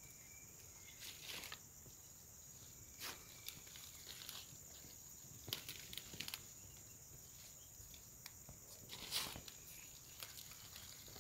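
Faint, steady high-pitched drone of an insect chorus, with irregular short rustles and crackles every second or two, the loudest about nine seconds in.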